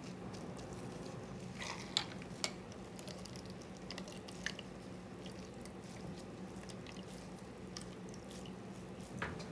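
Faint drips and small splashes of dye liquid falling from a squeezed, dye-soaked handkerchief into a plastic cup, over a steady low hum.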